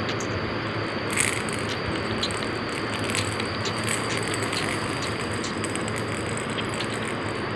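Small plastic baby rattle toys being handled, giving scattered light irregular clicks and rattles, the loudest about a second in, over a steady background hiss.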